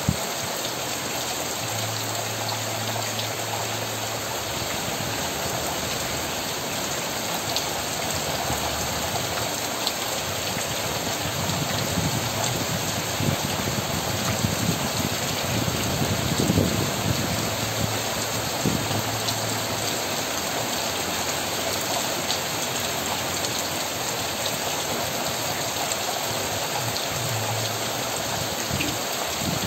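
Steady heavy rain falling on leaves and surfaces: an even hiss with scattered sharper drop ticks, swelling a little about halfway.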